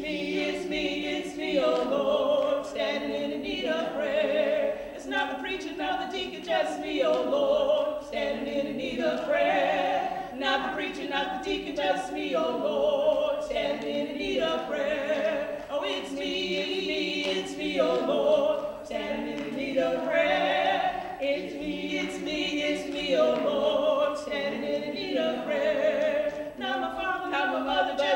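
Two women singing a gospel song without instruments, their voices holding and sliding between long notes, with hand claps keeping time.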